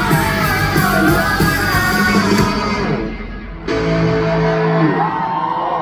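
Amplified live band playing with a singer during a sound check. About three seconds in the music thins out briefly, then a held chord comes in and the sung line returns near the end.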